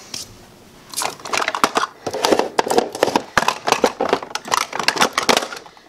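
Plastic makeup compacts clicking and clattering against a clear acrylic drawer organizer as they are pushed back into its slots. A dense run of small knocks starts about a second in.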